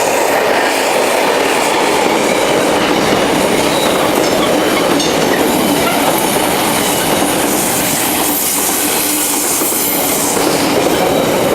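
Freight train hauled by a Class 66 diesel locomotive running through the station, a loud steady rumble with its wagons' wheels clattering over the rail joints.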